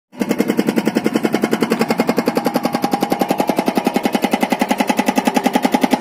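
Hydraulic rock breaker on a JCB 3DX backhoe loader hammering rock in rapid, even blows, about nine or ten a second.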